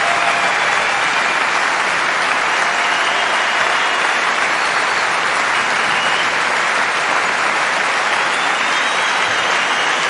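A large audience applauding steadily at the end of a show, a dense, continuous wash of clapping hands.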